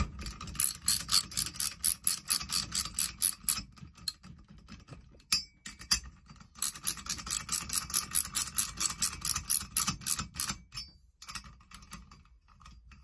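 Ratchet wrench with a 14 mm socket clicking rapidly, about seven clicks a second, in two runs of a few seconds each, as it is swung back and forth tightening cylinder acorn nuts. A few scattered softer clicks follow near the end.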